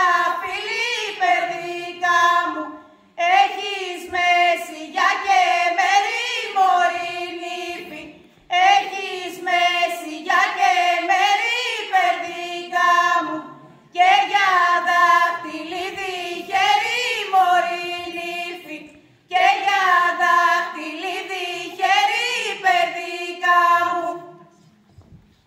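Group of women singing a Greek folk song unaccompanied, in unison, in phrases of about five seconds with short breaks between them; the singing stops shortly before the end.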